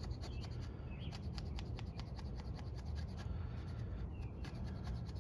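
A multi-tool knife blade shaving curls off a stick to make a feather stick: quick, repeated scraping strokes, several a second.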